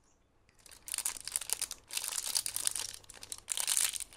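Packaging crinkling and rustling as a squishy toy is handled, an irregular crackle starting about half a second in.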